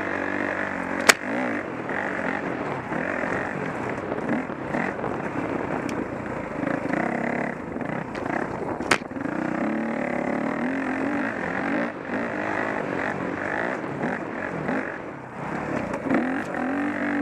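Dirt bike engine running while the bike is ridden along a trail, the revs rising and falling with the throttle. Two sharp knocks stand out, about a second in and again about nine seconds in.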